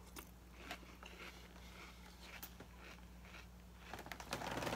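Close-up crunchy chewing of a mouthful of Frosted Flakes cereal, with small clicks of a metal spoon; the crunching and rustling grow louder near the end.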